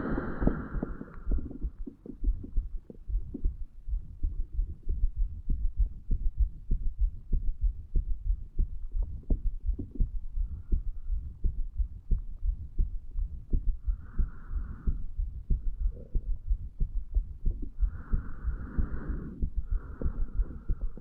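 Human heartbeat picked up at the chest over the mitral valve area: a steady run of low, dull thuds over a low hum.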